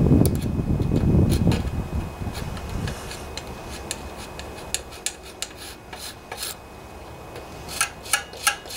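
Metal gasket scraper rasping old gasket material off the aluminium crankcase mating surface of a Briggs & Stratton single-cylinder OHV Intek engine, in repeated strokes. The scraping is heaviest for the first couple of seconds, then lighter, with a few sharp clicks of the blade near the end.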